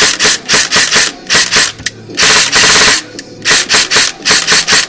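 Echo1 ST6 airsoft electric gun firing: its gearbox cycling in quick single shots several a second, with one longer full-auto burst about two seconds in. The gun shoots again now that a stray screw has been taken out of the gearbox.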